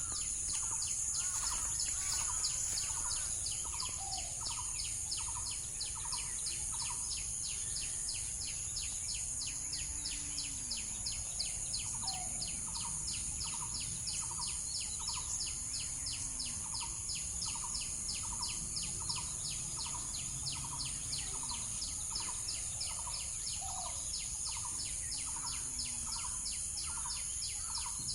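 Outdoor wildlife ambience: a steady high insect buzz with a fast, evenly repeating chirp, over which a bird gives runs of short repeated calls.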